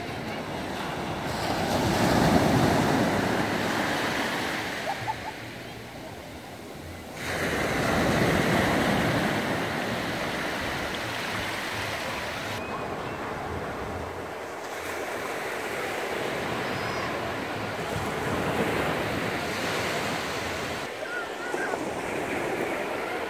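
Low sea surf breaking and washing up over wet, flat sand, a steady wash that swells loudest twice, about two seconds in and again around eight seconds.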